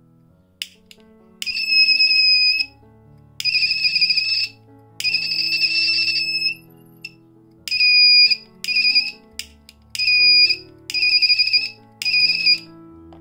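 Buzzer of a homemade flame-sensing fire alarm circuit beeping, setting off as a lighter flame is held at its sensor. It gives nine irregular bursts of a shrill steady tone, some of them short beeps and some held for about a second. Soft background music plays underneath.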